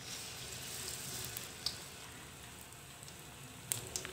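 Batter-coated kepok banana frying in hot oil in a wok: a steady sizzle with a few sharp crackles.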